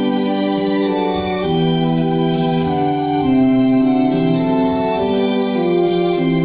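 Two-manual electronic organ playing a slow hymn tune in sustained chords, the held notes changing about every second, over a light, even ticking beat.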